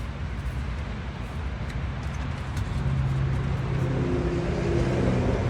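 Boat's outboard motor running, its low drone growing louder about three seconds in.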